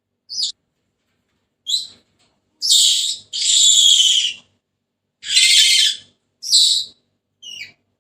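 Senegal parrot giving a series of rasping, screechy calls. There are about seven calls, most short, with two or three lasting about a second, separated by silent gaps.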